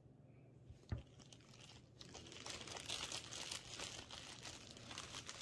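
A small plastic toy knocks once on the tabletop about a second in. From about two seconds on, a plastic bag crinkles steadily as hands rummage in it for the next figure.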